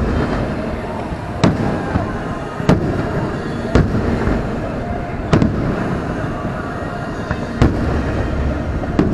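Aerial fireworks shells bursting in a display, about six sharp booms spaced a second or two apart.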